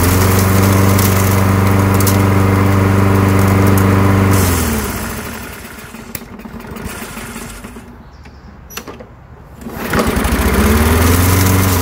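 Kohler single-cylinder four-stroke engine on a Toro Recycler push mower, started on its newly repaired recoil pull cord. It runs steadily for about four seconds, then winds down and stops. About ten seconds in it starts again, revs up, runs briefly and starts to wind down: the new pull cord starts the mower.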